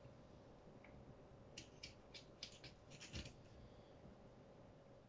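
A kitchen knife slicing through a cucumber-wrapped sushi roll on a cutting board: a short run of faint, crisp clicks between about a second and a half and three seconds in, the last with a dull knock.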